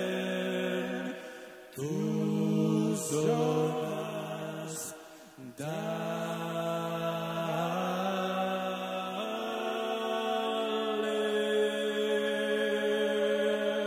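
An a cappella vocal group singing a Georgian song: several voices hold long, steady chords in three phrases with short breaks between them, and the last chord is held for about eight seconds.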